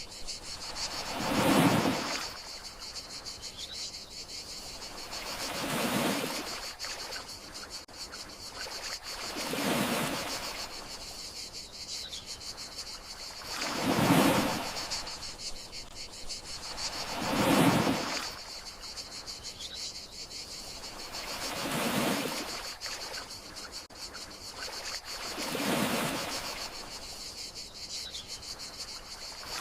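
Gentle sea waves washing ashore, one swell about every four seconds, over a steady high chirring of crickets.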